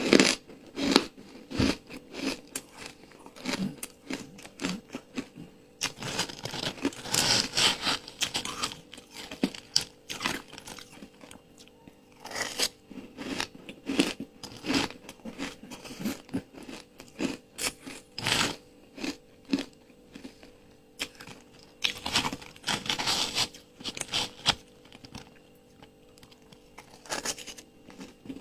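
Ice dusted with matcha powder being bitten and chewed close to the microphone: irregular sharp crunches in clusters, with short pauses between bites.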